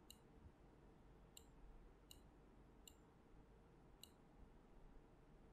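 Faint computer mouse clicks, five sharp ticks a second or so apart, over near-silent room tone.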